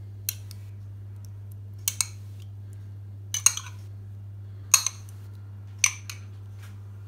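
A serving utensil clinking against a glass baking dish as salsa is dolloped onto nachos, about seven sharp irregular knocks, two of them in quick pairs. A steady low electrical hum runs underneath.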